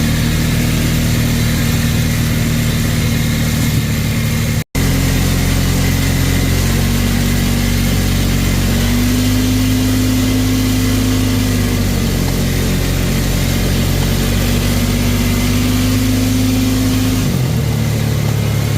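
ATV engine running steadily, its pitch stepping up and back down a few times through the middle and falling near the end. The sound drops out for an instant about five seconds in.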